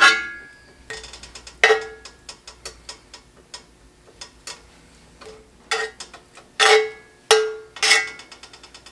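A metal utensil clanking and tapping against cookware while butter is scooped out. There are about six sharp, ringing clanks among many lighter clicks.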